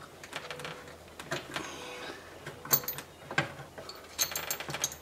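Hand tools working a bolt hole in the floor panel: scattered faint clicks and scrapes, then a short run of quick ticks near the end.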